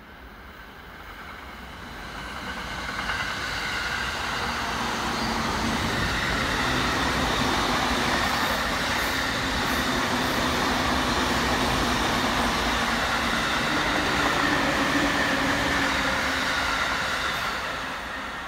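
A JR East Takasaki Line electric commuter train passing: the rumble of its wheels on the rails swells over several seconds, holds steady with a faint whine running through it, and starts to fade near the end.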